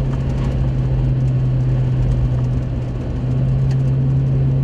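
Steady drone of a vehicle driving on a rural road, heard from inside the cab: a constant low engine hum over road noise, with a slight dip about three seconds in.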